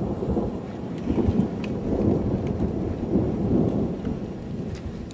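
Gusty wind buffeting the microphone: a low rumbling rush that swells and eases in uneven gusts.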